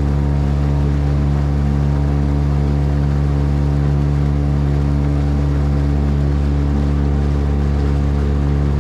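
Boat engine running steadily at one constant speed, a low, even drone.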